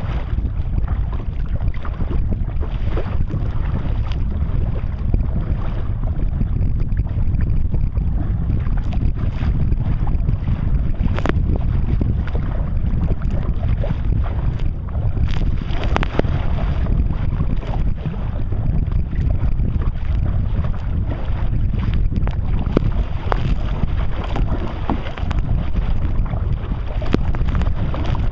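Wind buffeting the kayak-mounted camera's microphone with a steady low rumble, and choppy sea water slapping and splashing against the kayak's bow in scattered sharp ticks. Spray hits the camera near the end.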